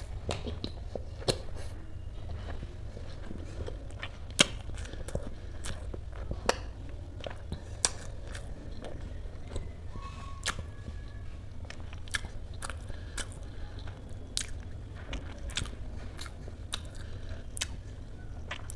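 A person chewing soft, spongy dhokla close to the microphone, with many short wet mouth clicks scattered throughout over a steady low hum.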